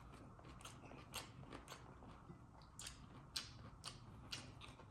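A person chewing a mouthful of pork adobo, close to the microphone: faint, irregular wet mouth clicks and smacks, several a second.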